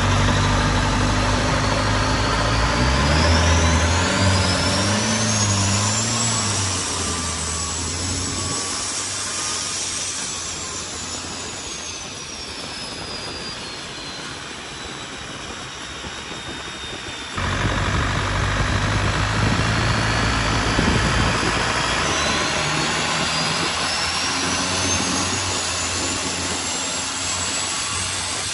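Turbocharged Isuzu inline-four diesel of a longtail drag boat running hard at speed, its high turbo whistle climbing, falling away and climbing again over the rush of water and wind. The engine's low note drops back in the middle and returns abruptly about 17 seconds in.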